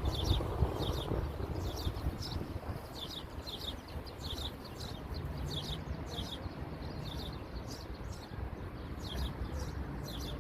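Small birds chirping outdoors: short, high, falling chirps in quick series, over a steady low rumble of outdoor background noise.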